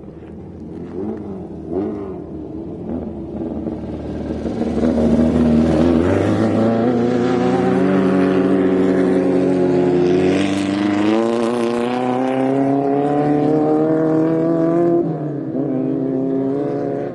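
Off-road race vehicle engines at high revs, passing and accelerating. The engine note climbs steadily for several seconds, drops briefly about ten seconds in and climbs again, then falls away about fifteen seconds in.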